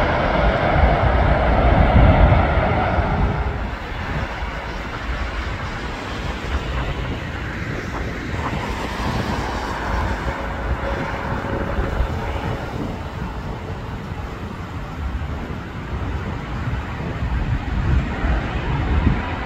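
Boeing 777 jet engines running loud as the airliner rolls out on the runway after landing, easing off after about three seconds into a lower, quieter jet rumble. Wind buffets the microphone throughout.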